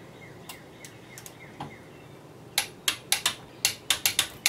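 Hand ratchet wrench clicking as it is swung back and forth, tightening bolts on a tire machine's turntable. Faint ticks at first, then from about halfway a quick run of loud, sharp clicks, a few a second.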